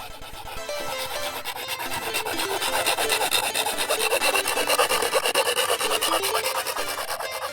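Rapid, even back-and-forth rasping strokes of a hand tool working bamboo, as in sawing or filing, growing louder toward the middle, with faint music underneath.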